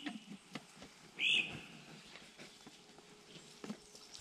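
A bird gives one short, loud, arching call about a second in, over a faint hiss and a few light clicks.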